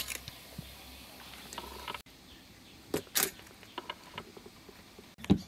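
Metal tongs knocking against a steel stockpot while a boiled slab of pork belly is lifted out, followed by a few scattered clicks and knocks and a short low thump near the end.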